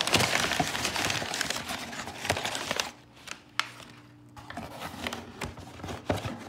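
Crumpled brown packing paper crinkling and rustling as it is handled in a cardboard shipping box, dying down about three seconds in. Then lighter rustles and a few sharp knocks from the box and its contents being handled.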